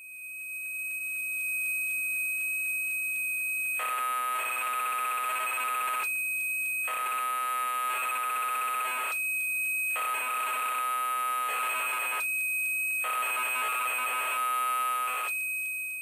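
BBC Micro cassette data signal played back: a high, steady carrier tone, then from about four seconds in four warbling data blocks of about two seconds each, with short stretches of the steady carrier between them.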